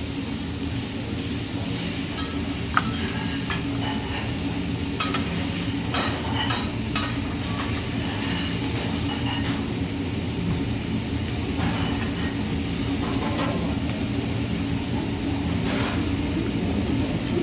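Food sizzling on a hibachi griddle over a steady low hum, with scattered sharp metallic clicks of spatulas against the griddle.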